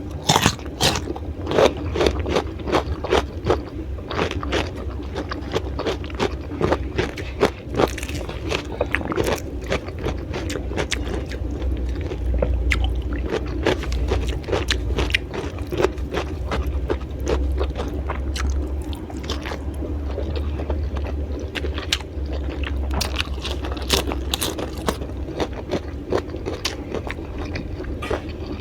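Close-miked crunching and chewing of raw vegetables, with many irregular crisp bites and crunches, over a low steady rumble.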